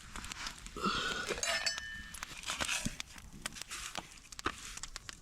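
Camp-cooking sounds: scattered light clinks and clicks of a metal pot and utensils, with a short, higher tone about a second in.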